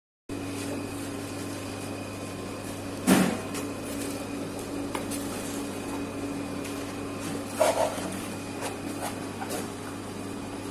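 Oven or drying machine running with a steady electric hum. A sharp knock comes about three seconds in, and lighter knocks and clatters come near eight seconds.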